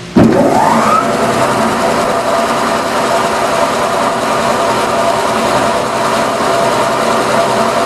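MSI industrial shredder with twelve double-hook knives, driven by a 50-hp electric motor, starting up with a rising whine over about the first second, then running steadily.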